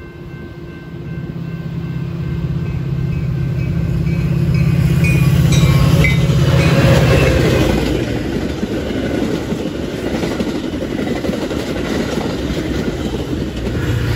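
Metra diesel commuter train passing close by: a low engine hum builds to its loudest about seven seconds in. Then the rumble and clatter of wheels on rail as the bilevel gallery cars roll past, with the locomotive's engine hum coming back in near the end.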